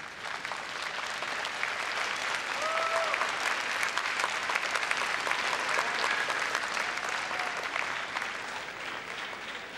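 Arena audience applauding, a dense clapping that swells toward the middle and fades near the end.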